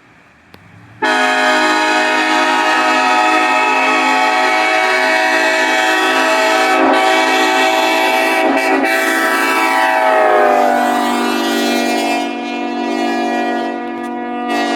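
Multi-chime locomotive air horn blasting: it cuts in suddenly at full volume about a second in and holds one long, loud chord, which drops in pitch about ten seconds in and carries on at the lower pitch.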